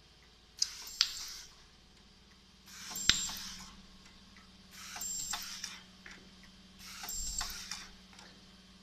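Automatic rotary-turntable ultrasonic welding machine cycling about every two seconds. Each of its four cycles is a sharp click followed by a short high hiss with a faint high whine. A low steady hum runs underneath from about a third of the way in.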